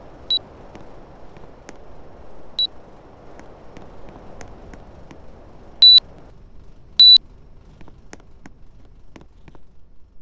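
Air conditioner's control beeping at one high pitch: two short beeps, then two longer, louder ones. A steady rushing of air runs under the first beeps and cuts off just after the third, as the unit shuts off. Faint clicks are heard throughout.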